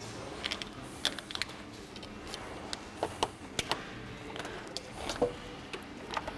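Scattered light plastic clicks and crackles, irregular and a few a second at most, as corrugated plastic conduit is handled and worked over a transmission cooler hose.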